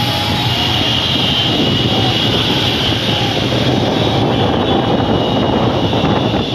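Steady, loud roar of a convoy of motorcycles heard from a moving vehicle, with a steady high whine running through it.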